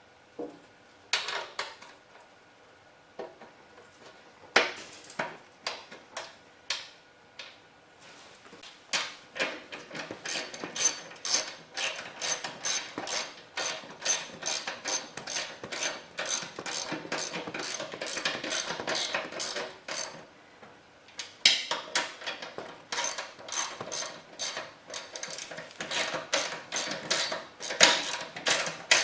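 A few separate metal clanks, then long runs of quick, even clicking, about three or four clicks a second, from a ratchet wrench turning bolts as the snowblower's auger assembly is bolted back together. The clicking pauses briefly about two thirds of the way through.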